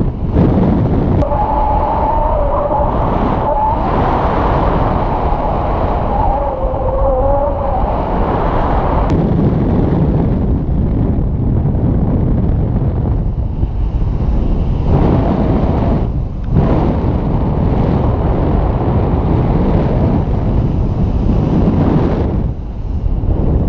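Loud, steady rush of wind buffeting the microphone of an action camera on a paraglider harness in flight, with a wavering whistle for several seconds near the start.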